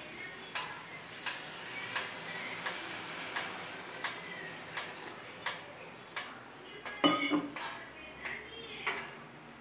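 Water pouring from a steel jug into a steel kadai of hot biryani masala, with a hissing stream. Short clinks of utensils on the pans follow, with a louder metal clatter about seven seconds in.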